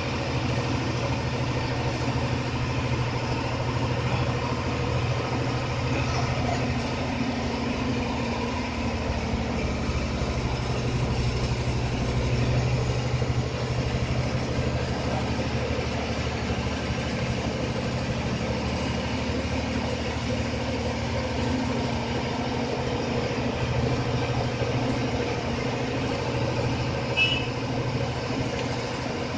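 Bus engine running steadily, heard from inside the cabin as a low hum with road noise. A brief high squeak sounds once near the end.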